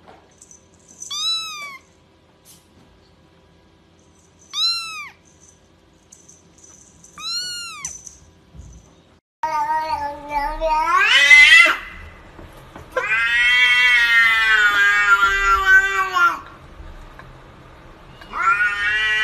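A kitten gives three short, high mews a few seconds apart. Then, about nine seconds in, a cat yowls at another cat in a standoff: a long rising wail, a drawn-out wavering yowl of about three seconds, and another rising wail starting near the end.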